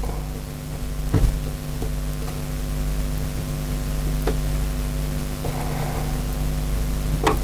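A few light metal clicks from a screwdriver working small screws into a Quadrajet carburettor, over a steady background hum.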